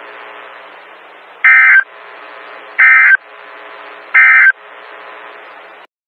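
Emergency Alert System end-of-message code from NOAA Weather Radio: three short bursts of warbling SAME data tones, each about a third of a second, spaced about 1.4 seconds apart, marking the end of the alert. A steady radio hiss runs under them and cuts off near the end.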